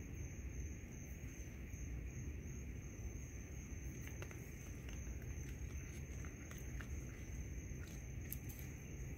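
Night insects, crickets, trilling steadily in one high unbroken tone over a low background rumble, with a few faint clicks about four seconds in and again near the end.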